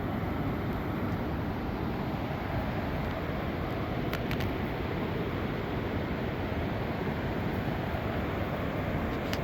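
Steady rush of water pouring over a river falls, an even noise that doesn't change.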